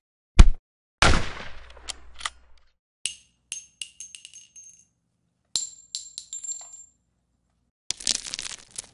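A string of action sound effects: a sharp gunshot, then a heavier shot about a second in with a rumbling tail, then two runs of small metal pieces clinking and ringing as they drop, and a dense crackling burst near the end.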